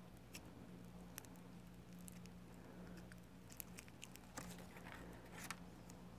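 Near silence: room tone with a steady low hum and a scattering of faint short ticks and light rustles, a little more frequent in the second half.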